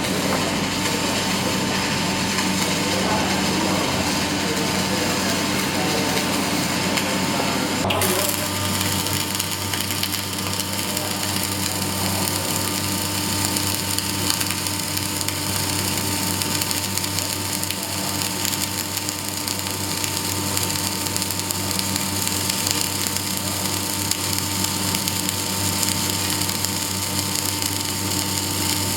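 Arc welding: the welding arc crackles and sizzles steadily, with a faint electrical hum under it, shifting slightly about eight seconds in.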